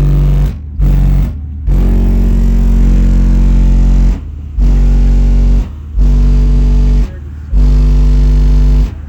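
Two DC Audio 18-inch car subwoofers, driven by Twisted Sounds amplifiers, play a very loud, deep bass note in repeated bursts. Most bursts last about a second with short breaks between them, and one longer burst starts about two seconds in.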